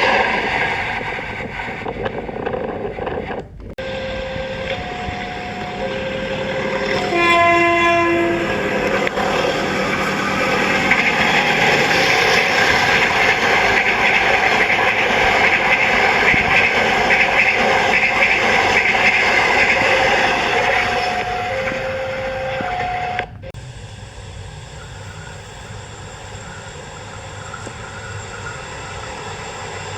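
Horn of the CC 201 diesel-electric locomotive: one loud blast of about a second, with fainter short steady tones before and after, followed by the long rumble and clatter of the train passing. The sound is cut abruptly twice, dropping to a quieter steady noise near the end.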